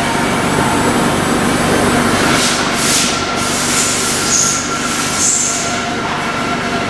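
LarsLap Model C1 valve grinder running, a steady mechanical grinding noise with a constant whine and hum, and a few short higher hissing surges partway through.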